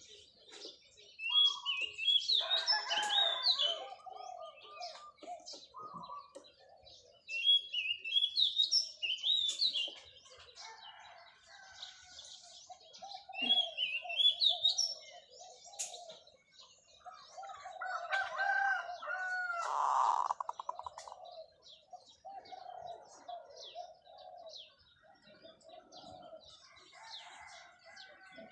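Zebra dove (Java dove) cooing in runs of quick staccato notes, with a louder rapid run about twenty seconds in. Bursts of high-pitched chirping from another bird break in about 2, 8 and 14 seconds in.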